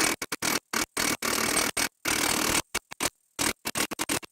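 Milwaukee M18 FUEL 1-inch cordless impact wrench hammering in repeated stop-start bursts, some long and many short, as the trigger is pulsed on a rusted nut that isn't budging.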